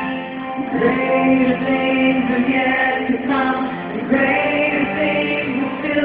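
Music with singing voices: long held notes that change pitch every second or so.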